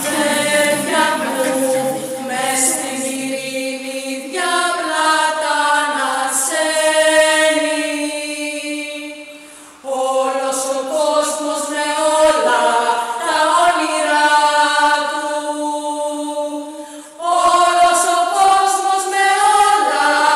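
Unaccompanied singing in long, held phrases, breaking off briefly about ten seconds in and again around seventeen seconds.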